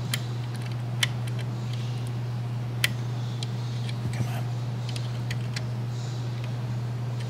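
Metal tweezers clicking and tapping against the plastic hood panel of a model car while prying at the hinged panel, which is stuck: a handful of sharp, separate clicks a second or more apart, over a steady low hum.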